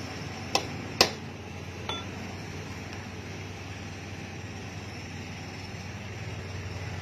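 Metal clinks from a hand tool working on a truck's wheel hub: two sharp clinks about half a second apart, then a lighter clink that rings briefly, over a steady low hum.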